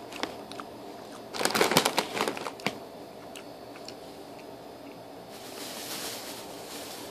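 Plastic packaging crinkling for about a second and a half, starting just over a second in, with a few faint clicks around it; a softer rustling follows near the end.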